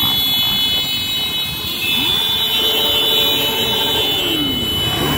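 Many motorcycle engines running as a dense column rides past, with a steady high-pitched tone over them. A passing engine drops in pitch at about four seconds in.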